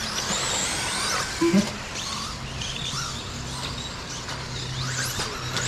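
Whine of several RC stadium trucks' electric motors, gliding up and down in pitch as the trucks speed up and slow down, with a steady low hum underneath.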